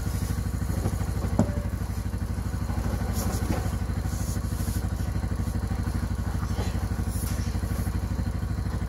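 Side-by-side utility vehicle's engine idling steadily with an even fast pulse, and a single knock about a second and a half in.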